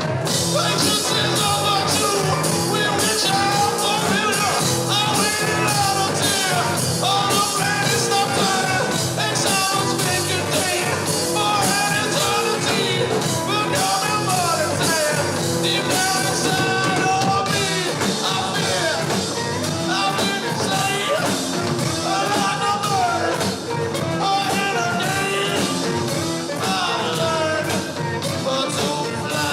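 Live trip-rock band playing an instrumental passage: steady drums and bass under a melodic lead line that bends and slides in pitch, with no sung words.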